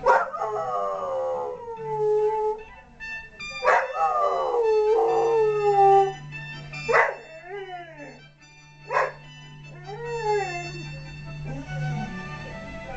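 A dog howling along to music, about four long wavering howls that slide down in pitch, each starting sharply.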